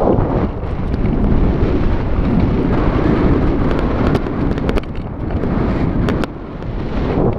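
Wind buffeting an action camera's microphone during a tandem paraglider flight: a loud, steady rumble. A few sharp clicks come between about four and six seconds in.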